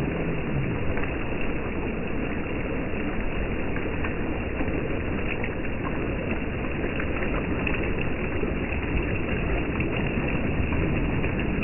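Small surf waves washing up and running back over sand at the water's edge: a steady rush of water with a low rumble underneath.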